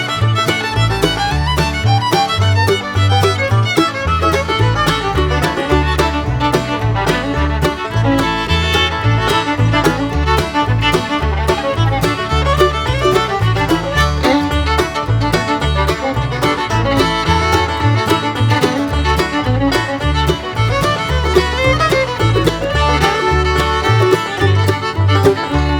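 Upbeat bluegrass-style background music with fiddle and banjo over a steady pulsing bass beat.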